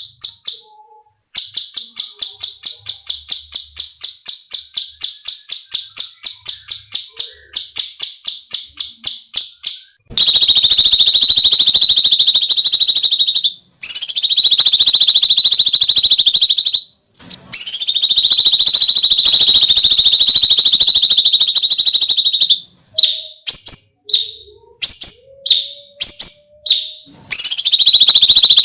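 Cucak cungkok songbird calling: a fast run of sharp repeated notes, about four or five a second, then long harsh screeching calls broken by short gaps, a few short falling chirps, and another long screech near the end. These are the shrieking calls that bird keepers play as a tutor recording for other songbirds.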